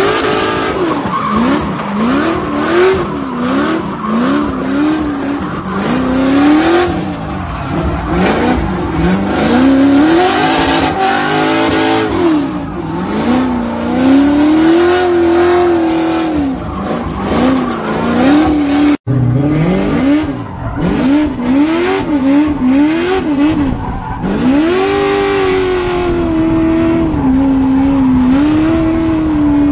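Drift car's engine revving up and down over and over while sliding through corners, with tyre squeal. The sound breaks off about 19 seconds in and picks up again with the same revving and squealing.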